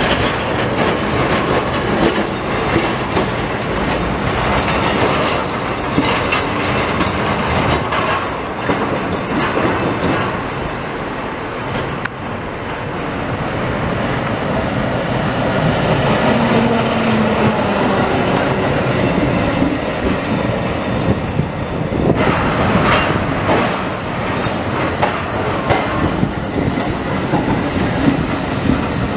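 Vintage G 051 freight tram running along street rails, its wheels clattering over the track.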